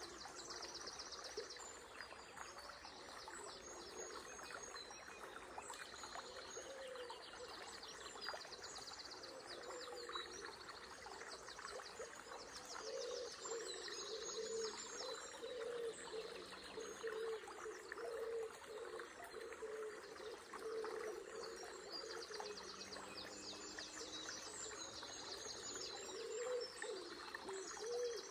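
Several small songbirds singing over a trickling river. The songs are fast trills and chirps, repeated every second or two, over a steady rush of flowing water.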